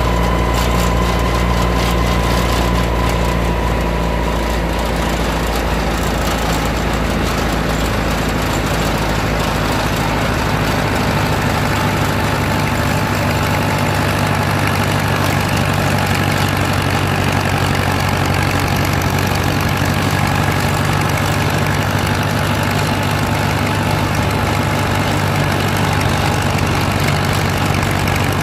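Engine of a vintage Ford tractor running steadily under way on the road, heard from the driver's seat.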